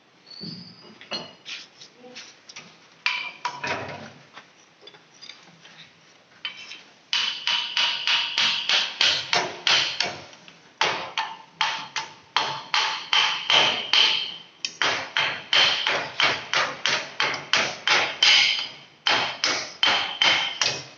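Metal being struck repeatedly with a hammer: a few scattered knocks, then a fast steady run of about three ringing blows a second from about seven seconds in.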